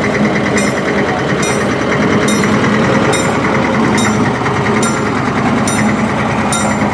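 Diema narrow-gauge diesel locomotive passing close by at low speed, its diesel engine running steadily, with a sharp click about once a second.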